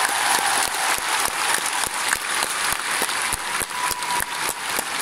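Large audience in an ice arena applauding steadily, with single claps standing out in the mass.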